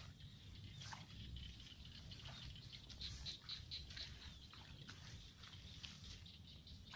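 Faint rustling and crackling of rice plants and grass stems brushed and trodden underfoot by someone walking through a rice field, with a steady low rumble underneath.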